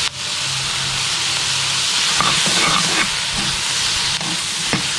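Onion, tomato and grated coconut sizzling in oil in a pan, a steady frying hiss, with a few short scrapes of the stirring spoon in the middle.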